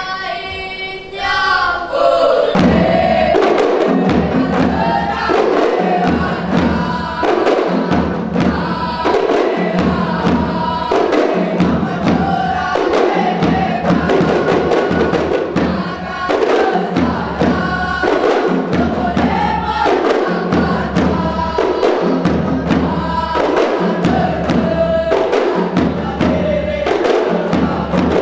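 Group chanting or singing over rapid, rhythmic hand-drum percussion, which comes in fully about two seconds in after a lone sung voice.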